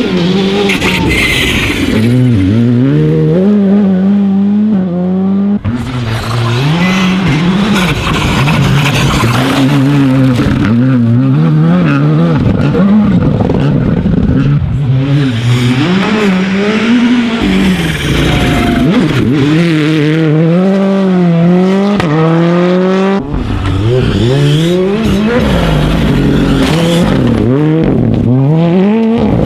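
Rally cars at full throttle through a corner, one after another. Each engine revs up and drops back at every gear change.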